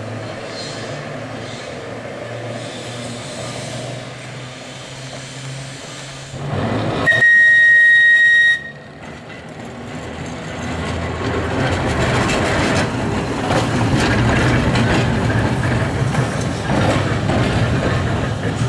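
Manx Electric Railway electric trams running on the rails, with a low steady hum as a car passes. Around the middle a tram's whistle gives one loud, single-pitched blast of about a second and a half that cuts off suddenly, followed by a louder rumble of wheels clattering over the track.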